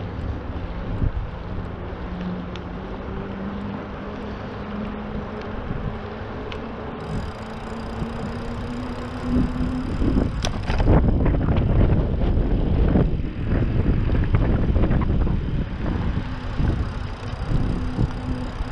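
A motor vehicle's engine hum, slowly rising in pitch, over steady outdoor noise. About halfway through, a louder low rumble with irregular bumps and knocks joins it.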